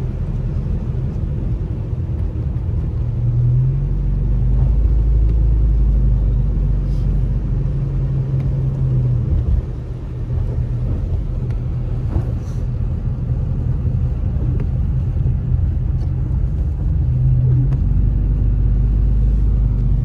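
Car driving, heard from inside the cabin: a steady low rumble of engine and road noise, with the engine note swelling a few seconds in and again near the end.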